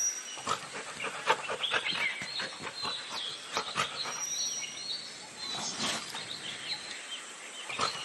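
Dholes (Asian wild dogs) squabbling at close quarters: a busy string of short, high squeaks, chirps and yelps with quick snaps and scuffling. A thin, high whistle recurs a few times.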